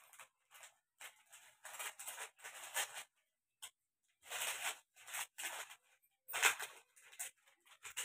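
Thin plastic packaging crinkling and rustling in irregular bursts as a small packet is picked open by hand, loudest about six and a half seconds in.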